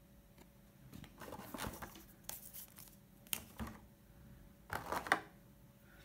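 Hands handling a clear plastic packaging tray: crinkling and scraping with several sharp clicks, starting about a second in and stopping a little before the end.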